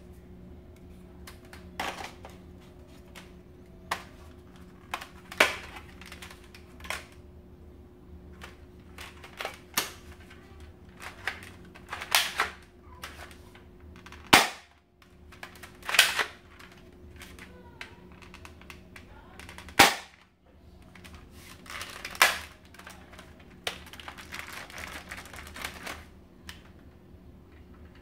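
Sharp clicks, knocks and short clattering rattles of a spring airsoft rifle's parts being handled and taken apart, the handguard and muzzle parts coming off, irregularly spaced, with a stretch of scraping and rustling near the end. A steady low hum runs underneath.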